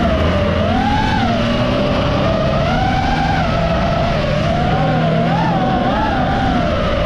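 FPV racing quadcopter's motors and propellers whining at high pitch, the pitch wavering up and down every second or so as the throttle changes.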